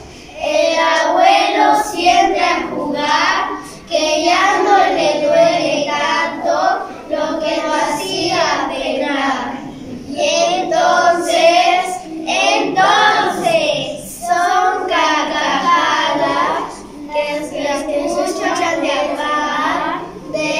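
A group of young children reciting a Spanish poem in unison, phrase by phrase, with short pauses between the lines.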